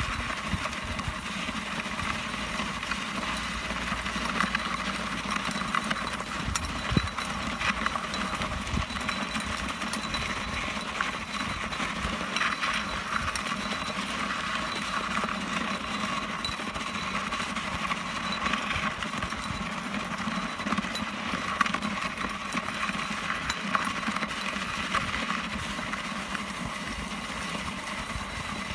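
A rubber tyre dragged over a snowy, grit-strewn road by a Gotland pony, a steady scraping with many small irregular clicks, mixed with the crunch of hooves and steps in the snow.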